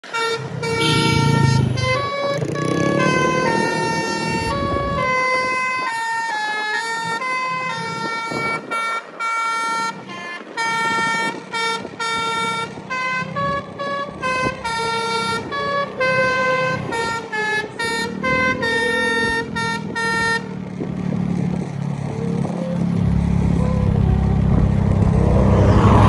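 Melodica (pianika) playing a loud, horn-like melody of held and short choppy notes, a hand-played imitation of an Indonesian basuri telolet bus horn. The melody stops about 20 seconds in, leaving a low vehicle engine rumble with road noise.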